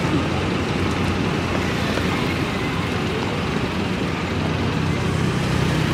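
Steady road traffic noise with a vehicle engine running; its low hum grows more distinct in the second half.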